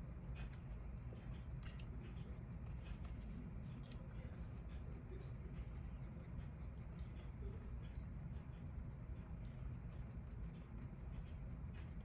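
Pencil strokes scratching on watercolour paper: many light, short scratches in quick succession over a low steady hum.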